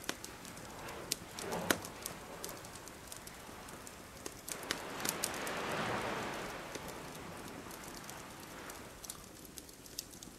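Wood campfire crackling, with scattered sharp pops throughout. In the middle, a soft rushing swell rises and falls over about three seconds: a wave washing up the beach.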